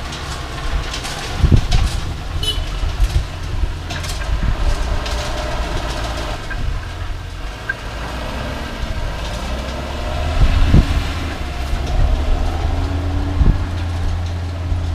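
John Deere 6930 tractor's six-cylinder diesel engine running steadily as the tractor drives past, pulling an Arcusin AutoStack bale stacker. It gets louder about ten seconds in, and there are a few short knocks along the way.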